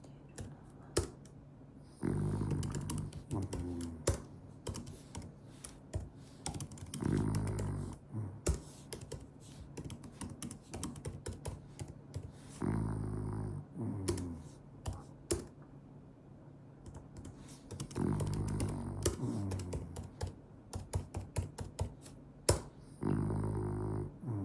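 Sleeping French bulldog snoring: five low snores about five seconds apart, each lasting a second or two, with a scatter of small sharp clicks in between.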